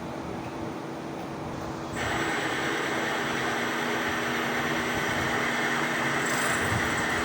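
CNC machine running with a steady mechanical hum; about two seconds in it gets louder, adding a hiss and a high steady whine.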